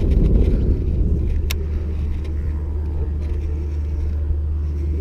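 Wind buffeting an action-camera microphone: a steady, heavy low rumble, gustier at first and easing after about a second and a half. A single sharp click sounds about a second and a half in.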